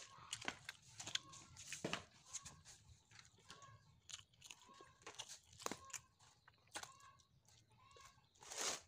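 Quiet eating sounds: irregular crunching and crinkling as fingers pick apart charred grilled fish on a paper sheet, with chewing. A louder rustle comes near the end.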